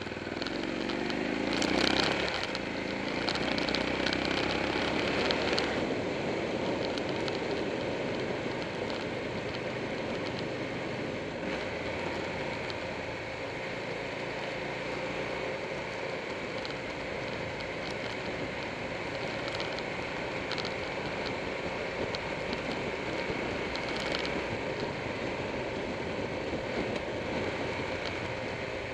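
Motorcycle riding at speed, heard from a camera mounted on the bike: the engine rises in pitch as it accelerates in the first two seconds, then gives way to a steady rush of wind and road noise.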